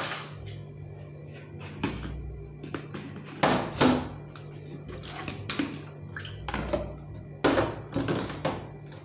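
Background music, broken by several sharp knocks and scrapes as plastic containers are handled and fresh pepper is scooped from a plastic tub into a plastic bucket of blended beans. The loudest knocks come about three and a half and four seconds in, with more near the end.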